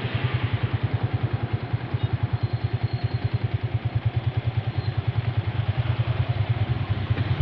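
Vehicle engine running steadily, a fast, even low throb of about ten pulses a second over steady road noise.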